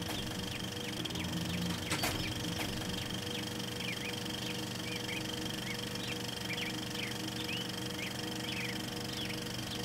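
A steady low hum with many short, high chirps scattered throughout, and one sharp click about two seconds in.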